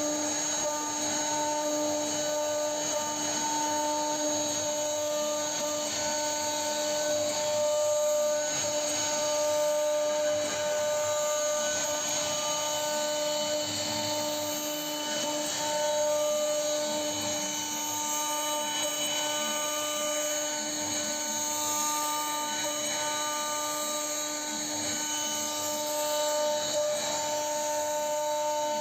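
CNC router's spindle running at speed as it cuts: a steady whine made of several tones over a continuous hiss.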